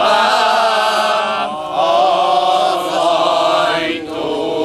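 A group of men singing a Hungarian folk song together, in long drawn-out notes, with a new phrase beginning about one and a half seconds in.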